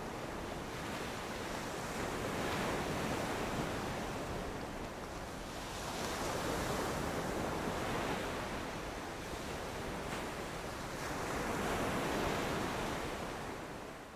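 A steady rushing noise that swells and subsides about every four to five seconds, dropping away at the very end.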